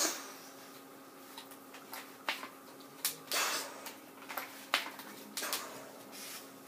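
A scattered run of clicks, knocks and a brief scrape from handling a toy BB sniper rifle and its detachable parts, with a steady faint hum beneath.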